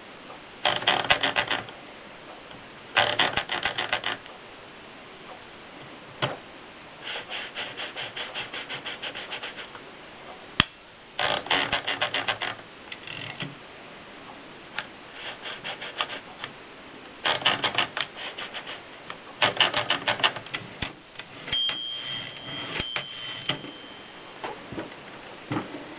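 Rheinmetall typewriter being typed on: keystrokes clatter in quick runs of about a second each, several strokes a second, with short pauses between the runs.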